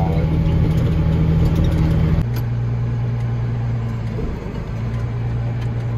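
Case IH Magnum tractor's diesel engine running steadily, heard from inside the cab. Its pitch drops abruptly about two seconds in, then holds steady.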